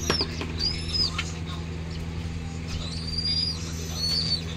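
High, thin whistled calls, each rising and falling in a short arch, coming in spells of several, from a downy young raptor begging for food as it is hand-fed. A steady electric-fan hum runs underneath.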